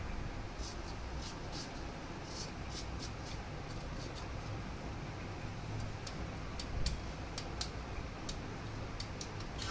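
Kitchen knife slicing through raw beetroot held in the hand, a short crisp cut every half second to a second, coming more quickly toward the end, over a steady low background hum.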